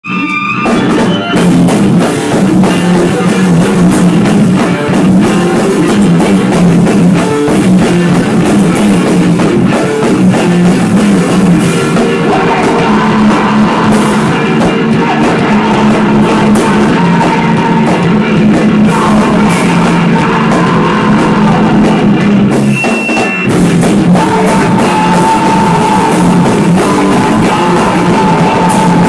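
Loud, dense rock-style band music with drums and guitar, playing without a break apart from a brief dip about 23 seconds in.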